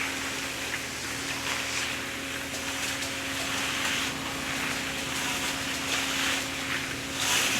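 A motor running with a steady, even hum, under a rushing hiss that swells and fades.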